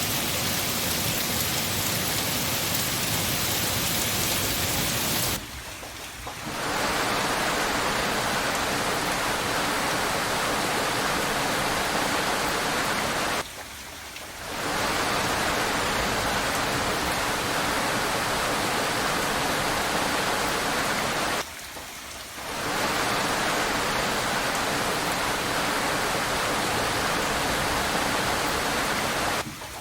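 Steady heavy rain, a dense even hiss, that dips for about a second three times, roughly every eight seconds.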